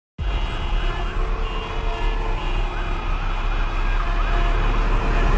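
City street traffic noise with an emergency-vehicle siren wailing up and down, starting suddenly just after the opening.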